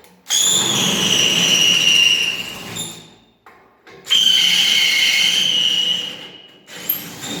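Electric drill boring out a bolt hole in a steel truck frame, run twice for about two and a half seconds each with a pause between. The bit squeals with a high whine as it cuts the metal.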